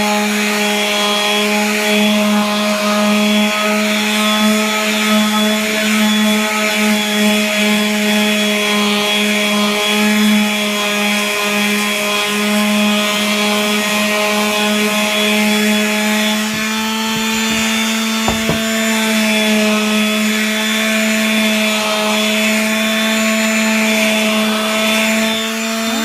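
Electric sander running steadily against wood, a constant motor hum with the rasp of abrasive on the surface; a brief knock about two-thirds of the way through.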